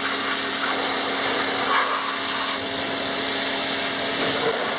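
Pressure washer spraying water against an off-road vehicle's underbody and suspension: a steady hiss of spray over the washer's motor hum, which stops near the end.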